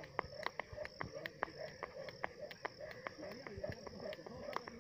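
Skipping rope ticking against the ground in a fast, even rhythm, about four to five strikes a second, over a steady high chirring of insects.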